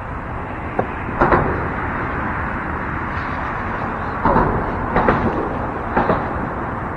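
Steady rush of road traffic on the bridge overhead, with a handful of sharp knocks and clatters about a second in and again between four and six seconds in.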